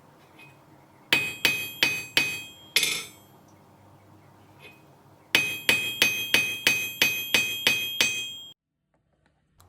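Hammer blows forging a small piece of metal, each one ringing. A short group of about four blows comes first, then a steady run of about nine at roughly three a second, which cuts off abruptly.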